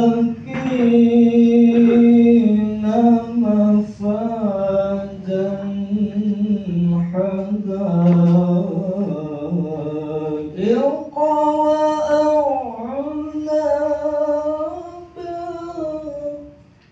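A man reciting the Quran in the melodic tilawah style into a handheld microphone, in long held notes with ornamented turns. His voice climbs to a higher pitch about ten seconds in, and the phrase dies away just before the end.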